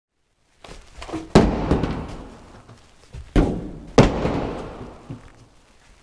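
A series of heavy slams, each dying away over about a second. The three loudest come a little over a second in, and at about three and a half and four seconds, with lighter knocks between them.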